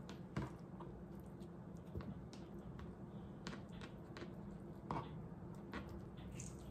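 Kitchen work: irregular light clicks and taps of utensils, the sharpest about half a second in and about five seconds in, over a low steady hum.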